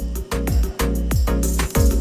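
Background music with a steady electronic beat, driven by a deep kick drum and a bass line.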